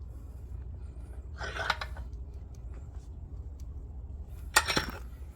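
Boot clamp on a CV axle boot being squeezed with a clamp crimping tool: two short noisy sounds, the second, near the end, sharper and louder, over a steady low hum.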